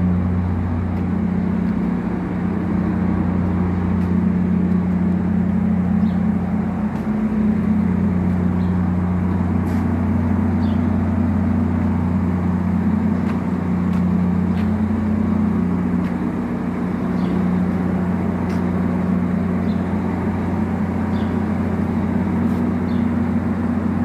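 Heavy machinery running steadily: a loud, even, low drone whose pitch shifts slightly now and then.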